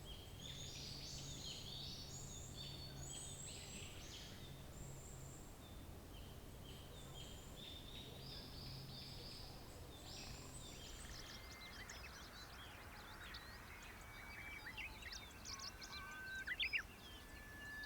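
Wild birds singing and calling, several voices overlapping in repeated high phrases over a faint low hum. About ten seconds in, the hum stops and a busier chorus of short, sharp chirps takes over.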